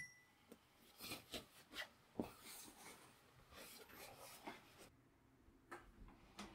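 Faint rustling and light scratching of clothes and hangers being handled, with a few soft clicks.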